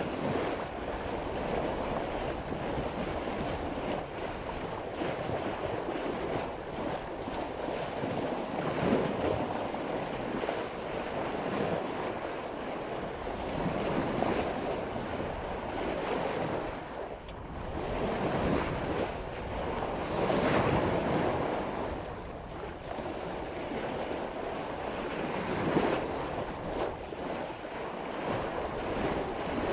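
Sailboat's bow cutting through ocean waves under sail at about 5 knots: a steady rush and splash of water along the hull, swelling every few seconds as waves meet the bow, with wind buffeting the microphone.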